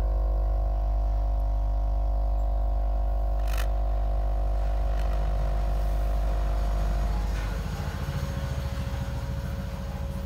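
Jewellery gas torch running on gas with an electric air supply, its mains-powered air pump humming steadily with a sharp click about three and a half seconds in. About seven seconds in the hum stops and a rougher, noisier flame rumble carries on, as the air is cut and the flame burns on gas alone.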